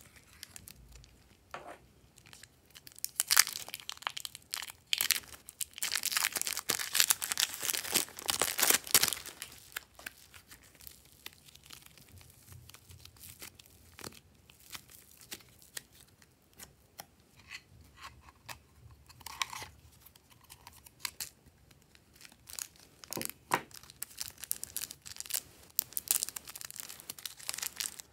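Thin plastic packaging being crinkled and torn open by hand: a dense run of crackling lasting about seven seconds, then scattered crackles. More plastic crinkling near the end as a zip bag of slime is squeezed.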